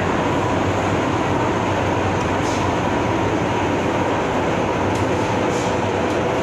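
MTR M-Train electric multiple unit running at speed through the Island Line tunnel, heard from inside the car: a steady rolling rumble and roar with a faint steady tone and a few light clicks.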